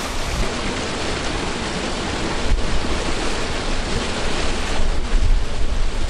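Passing electric train at close range: a loud, steady rushing noise of wheels and air with a heavy low rumble.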